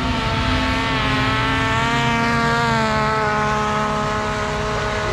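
Drag-racing snowmobile engine at full throttle, a steady high-pitched whine that sags slightly in pitch about three seconds in as the sled runs down the track.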